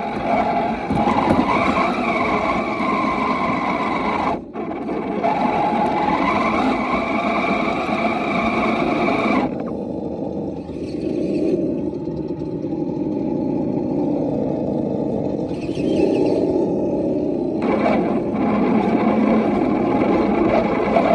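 Scale RC rock crawler's electric motor and geared drivetrain whining as it crawls over dirt and rock, picked up close by a camera mounted on the truck's body. The higher part of the whine drops away for several seconds around the middle, then returns.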